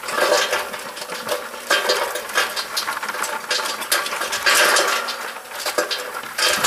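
Small pieces of wood poured from a bucket into the metal reactor tube of a wood gasifier, clattering and rattling down inside in a rapid run of irregular clicks that comes in several heavier surges.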